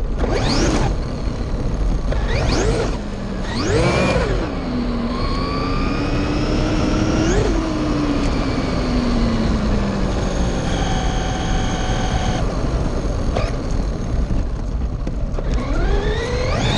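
Traxxas RC car's electric motor and gears whining as it is driven hard on a 3S battery with 18/54 gearing: several quick bursts of throttle rise and fall in pitch, then a long coast-down with a slowly falling whine, and it speeds up again near the end, over a steady rush of tyre and wind noise.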